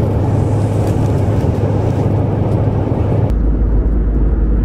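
Steady cabin noise of an Airbus A320neo airliner in flight: the hum of the engines and airflow. A little over three seconds in, the sound abruptly turns deeper.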